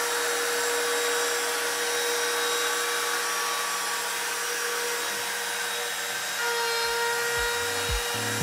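CNC router's trim-router spindle running steadily with a whine, driving a 1/4-inch down-cut end mill that skims the top face of a hardwood cutting-board blank to flatten it. Deep beats of music come in near the end.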